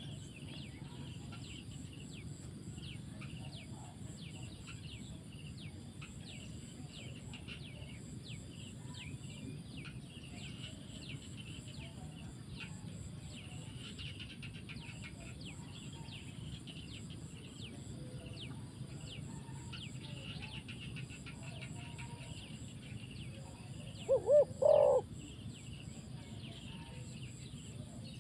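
Many small birds chirping over a steady low background noise. About 24 seconds in, a spotted dove gives one short, loud cooing call of three quick notes.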